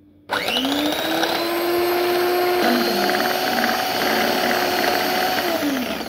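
Electric hand mixer whipping heavy cream. The motor starts about a third of a second in with a rising whine, runs steadily, then winds down with a falling whine just before the end.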